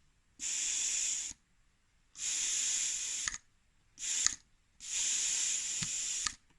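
A pressurised spray hissing in four bursts: three of about a second or more and one short one, with a small click as several of them stop.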